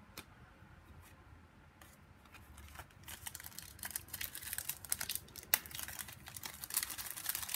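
Trading-card pack wrapper being torn open and crinkled by hand: a few soft clicks at first, then a run of crackling from about three seconds in, with one sharper snap near the middle.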